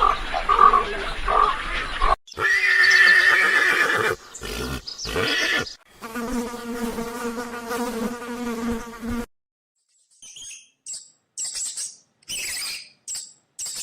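Several different animal calls edited back to back with abrupt cuts: a pitched call about two seconds in, a steady pitched call lasting about three seconds from six seconds in, then, after a brief silence, a string of short, high, buzzy chirps like an insect's.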